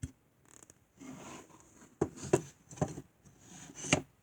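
Small plastic toy pieces being handled: a few sharp clicks and knocks with scraping and rustling in between.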